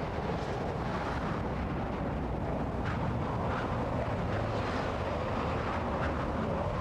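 Steady rushing roar of strong storm wind, with no clear pitch.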